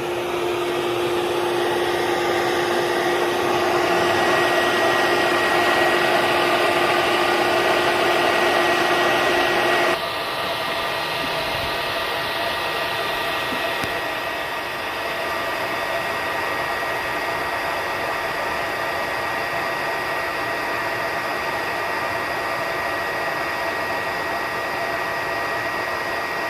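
A steady whirring drone with a low hum under it. About ten seconds in, the hum and part of the noise cut off abruptly, leaving a slightly quieter steady whir.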